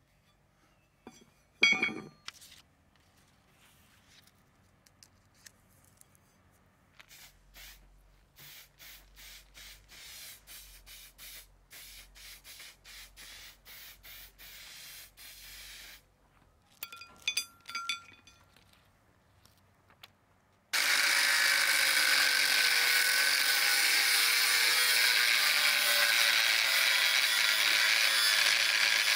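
A handheld angle grinder with a thin cutting disc starts cutting through steel plate about two-thirds of the way in, running loud and steady to the end. Before it there is a sharp metallic clink about two seconds in, a quiet rhythmic rubbing for several seconds, and a few light clinks.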